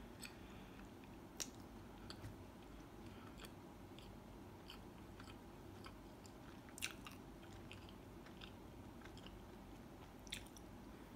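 Faint chewing of a mouthful of soft, fluffy bread with the mouth closed, with scattered small mouth clicks, a few of them louder.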